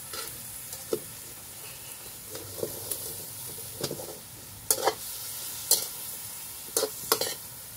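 Chicken, pork and long beans sizzling in a steel wok, with a metal spatula scraping and clinking against the pan about seven times as the food is stirred.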